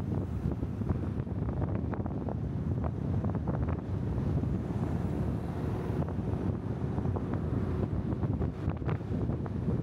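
Wind buffeting the microphone of a small camera clamped to the outside of a moving car: a steady low rumble with constant crackles, over the car's road noise.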